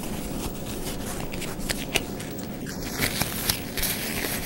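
Disposable nitrile gloves being stretched and pulled onto the hands: rubbery rustling with scattered small snaps and crackles.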